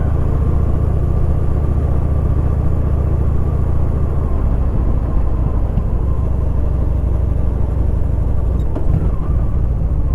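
Motorcycle engine running steadily at low speed, a constant low rumble with a faint steady whine above it.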